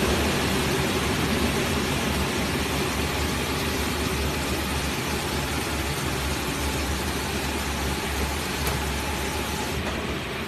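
Automatic piston filling and screw-capping machine running: a steady low mechanical hum under a continuous hiss, the hiss thinning out near the end.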